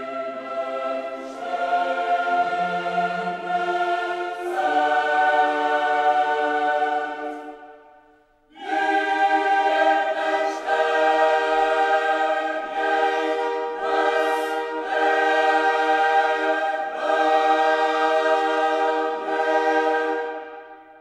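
Background music of a choir singing long held chords. It fades out about eight seconds in, comes back strongly a moment later, and fades away again near the end.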